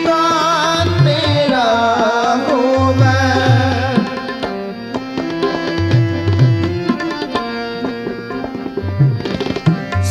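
Sikh devotional kirtan: a voice singing a shabad over steady held accompaniment notes, with tabla strokes, the singing strongest in the first few seconds.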